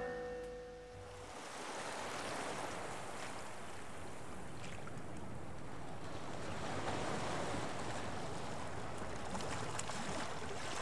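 Sea waves washing onto a rocky shore: a steady wash of surf that fades in after the tail of a piece of music dies away in the first second.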